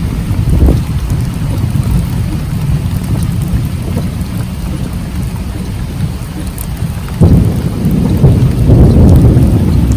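Strong storm wind buffeting the microphone: a loud, low rumbling noise that gusts unevenly and surges louder about seven seconds in.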